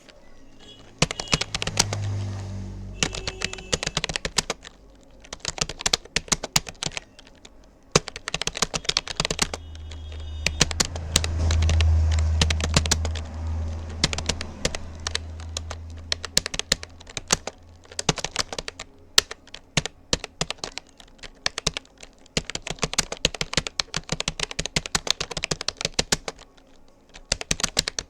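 Rapoo computer keyboard being typed on fast and continuously, a rapid stream of key clicks that pauses briefly near the end. A low rumble swells under the typing in the middle.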